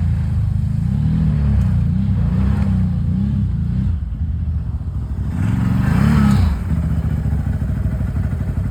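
ATV engine running under varying throttle, its pitch rising and falling, with a sharper rev about six seconds in before it settles to a steady run.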